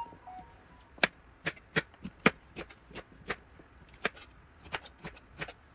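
Chef's knife chopping burdock root into short pieces, the blade knocking on an end-grain wooden cutting board: a run of sharp, irregular chops, about three a second, starting about a second in.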